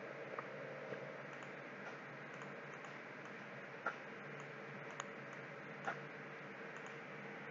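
A few separate computer mouse clicks, spaced a second or so apart, over a steady faint background hum.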